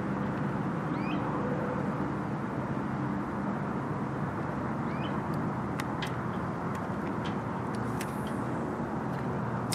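Steady low motor rumble with a faint hum, with two short rising bird chirps and a few light ticks over it.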